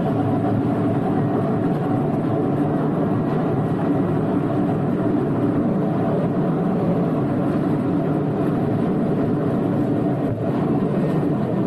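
Small open-carriage tourist train running steadily along its track: a continuous engine and rolling rumble.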